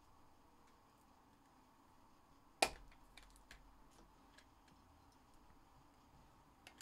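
Trading cards and a clear plastic card holder being handled: one sharp click about two and a half seconds in, followed by several faint ticks and a light tap near the end, over low room tone.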